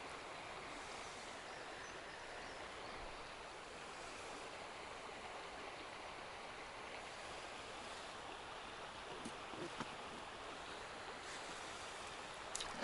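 Faint, steady rush of flowing river water, with a few small clicks about nine and twelve seconds in.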